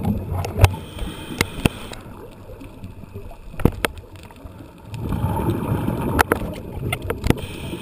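A scuba diver breathing through a regulator, heard underwater: a bubbling rumble of exhaled air at the start and again about five seconds in, a thinner hiss of inhaling between them and near the end, with a scatter of sharp clicks.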